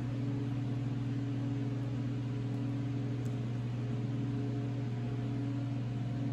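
Steady low hum of a machine or electrical device running constantly, with a fainter higher tone above it and no change in pitch or level.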